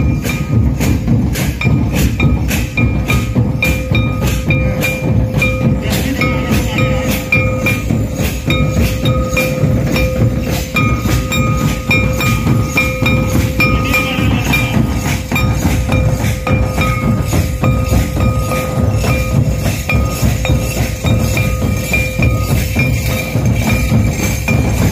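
Live Santali dance music: a band of barrel drums beating a fast, steady rhythm, with a harmonium holding a note over it.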